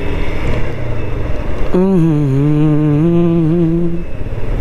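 Motorcycle ride with steady wind and engine rumble on the camera's microphone; a little under two seconds in, the rider hums a long, wavering note for about two seconds.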